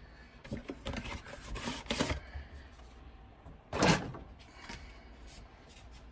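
Action-figure packaging being handled and opened: cardboard and plastic crinkling with small clicks, and one loud, sharp noise about four seconds in.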